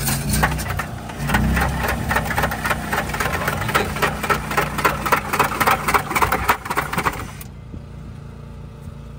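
Block-ice shaving machine shaving a block of ice into a bowl: a rapid, rhythmic scraping over a low hum, which stops suddenly about seven seconds in.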